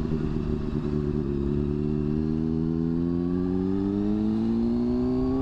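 Sport motorcycle engine accelerating in one gear, its pitch rising steadily as the bike pulls away.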